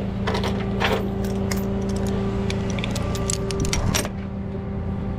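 Tow truck engine idling with a steady hum, while metal tie-down hooks and chains clink and rattle as a wrecked car is unstrapped from the rollback bed; the clinking stops about four seconds in.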